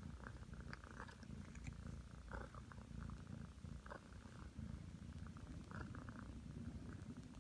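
Nine-month-old Ragdoll cat purring steadily and softly as it settles down to rest.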